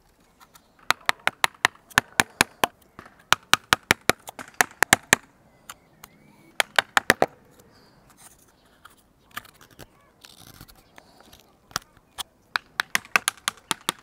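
Mallet striking a carving chisel into a log, in runs of sharp taps about three a second, with short pauses between the runs.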